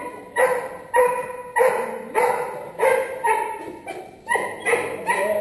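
A 17-week-old puppy barking over and over in a steady rhythm, about two barks a second, worked up by a rag during bite training.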